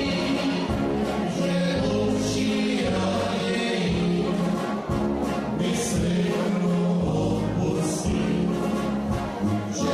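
Live dance band music with singing, a steady low bass line underneath.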